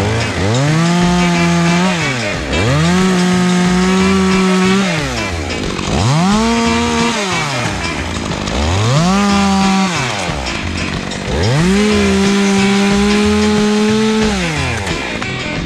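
Top-handle chainsaw cutting into a pin oak trunk. It is run up to full throttle five times, each time climbing to a steady high pitch for one to three seconds, then dropping back to idle between cuts.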